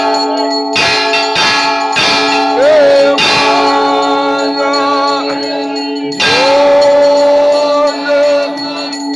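Temple bells struck again and again, each strike ringing on over a sustained ringing tone, while a voice sings the aarti in long held notes.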